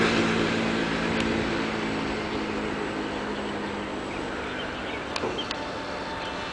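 Distant engine drone with a steady rushing hiss; a low hum underneath fades away over the first few seconds, and two faint clicks come about five seconds in.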